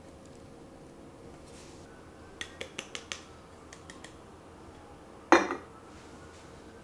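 Kitchenware handled by hand: a quick run of five light clinks, a few fainter ticks, then one sharp knock with a short ring, as of a cup or utensil set down on a hard surface.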